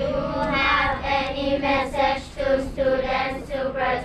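A group of children reading a question aloud together in unison, in a high, sing-song chant.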